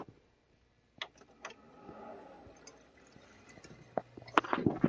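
A few sharp clicks spaced out over several seconds, with a faint, short whir around two seconds in, as a desktop PC is switched on.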